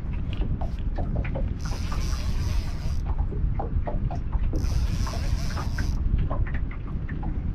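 Outdoor ambience dominated by a steady low rumble of wind buffeting the microphone, with a high hiss that swells and fades about every three seconds.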